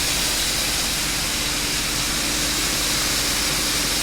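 Shelled corn being unloaded from a truck into a grain bin, a steady rushing hiss of flowing grain with a faint machine hum beneath it.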